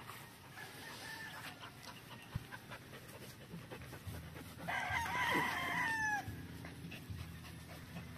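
A gamecock crows once, about halfway through. The crow lasts about a second and a half and ends in a falling note.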